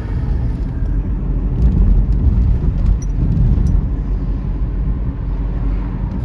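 Low, steady rumble of a passing train, with a few faint clicks around the middle.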